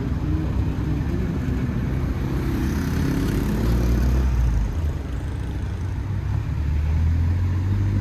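Street traffic: motor vehicles passing, their engine rumble swelling about three seconds in and again near the end.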